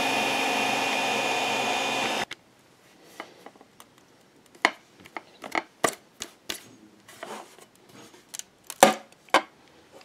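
Creality CR-10 3D printer running with a steady hum and whine from its fans and stepper motors, cut off suddenly about two seconds in. Then scattered sharp plastic clicks and snaps as the printed PLA box is worked by hand, the loudest near the end.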